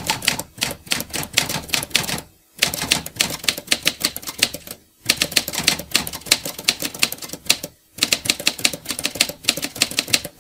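Typewriter sound effect: fast runs of key clacks in four bursts with short pauses between them, matching text being typed onto the screen.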